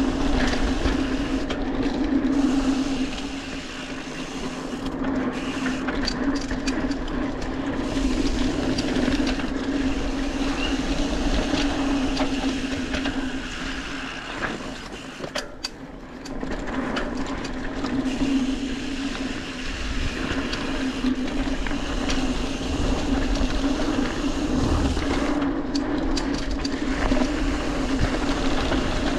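Mountain bike rolling fast down a dirt singletrack strewn with dry leaves: steady tyre and frame rattle noise that eases off twice, a few seconds in and about halfway.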